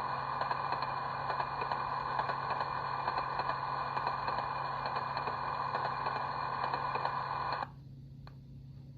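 A DCC sound decoder in an HO scale model railcar playing its generator and clickety-clack sounds through a small speaker, running on its current keeper with track power cut. Near the end the sound cuts off suddenly as the current keeper runs out.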